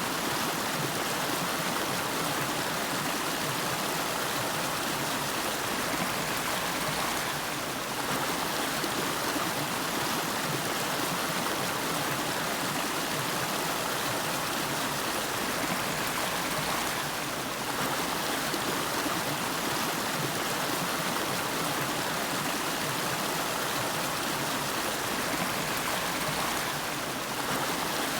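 River water flowing steadily: an even, unbroken rush of running water.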